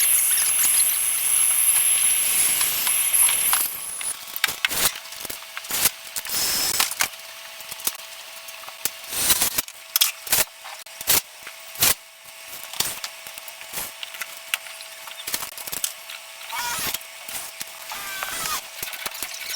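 A soldering torch hissing steadily on copper pipe, shut off about four seconds in. After it stops come scattered sharp clicks and knocks of tools and copper fittings being handled.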